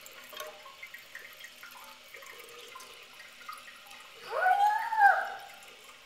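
Eljer Patriot toilet tank refilling after a flush, with water running and trickling into the tank through the fill valve. About four seconds in, a loud whine rises and then falls in pitch for about a second.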